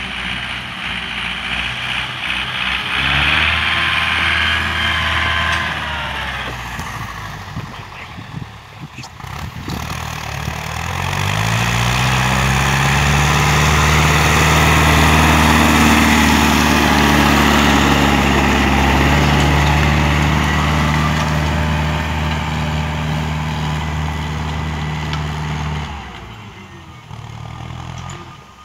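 Farm tractor's diesel engine working under load while pulling a disc harrow through tilled soil. It revs up about ten seconds in, runs loudest and steady as the tractor passes close, then fades as it moves off near the end.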